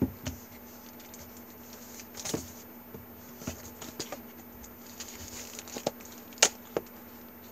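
Plastic mailer bag being handled and opened: scattered rustles, crinkles and small clicks, the sharpest about six and a half seconds in.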